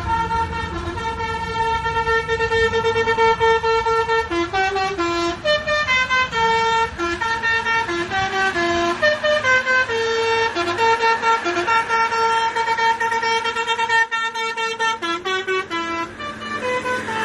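Bus 'telolet' horn, a multi-tone air horn, playing a melody: several horn notes sound together and change in quick steps, over a steady engine hum.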